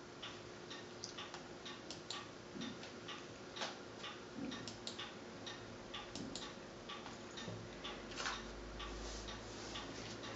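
Faint ticking clicks, about three or four a second and unevenly spaced, over low room tone, with a slightly louder click about eight seconds in.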